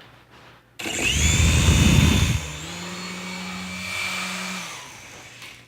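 Small remote-control toy helicopter's electric motors whining as they spin up about a second in, with rotor downwash buffeting the microphone for a second or two. The whine then holds steady and fades out near the end.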